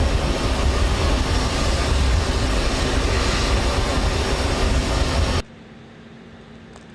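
Loud, steady vehicle noise, heavy in the low end, that cuts off suddenly about five seconds in, leaving a faint steady hum.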